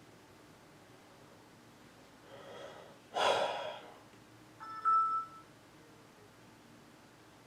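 A person breathes out heavily close to the microphone about three seconds in, after a fainter breath just before. About a second and a half later comes a short electronic beep. The rest is quiet room tone.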